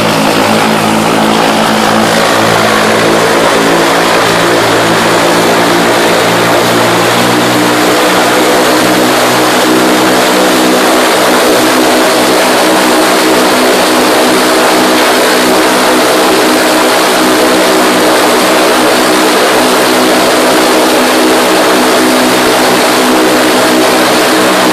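MWFly four-cylinder boxer aircraft engine running on a test stand: a loud, steady drone with an even engine hum that holds a constant speed.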